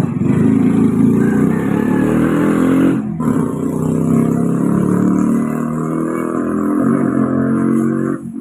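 A motor vehicle engine running steadily, breaking off briefly about three seconds in.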